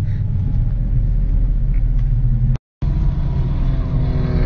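Steady low rumble of a vehicle's engine and road noise heard from on board as it drives around a race circuit. The sound cuts out completely for a moment about two and a half seconds in.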